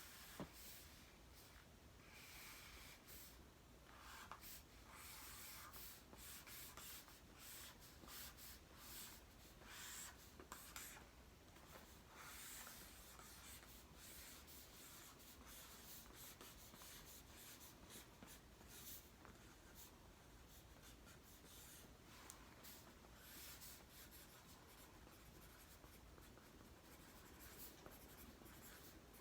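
Faint felt-tip marker writing on poster board: many short, uneven strokes of the tip across the card as letters are drawn.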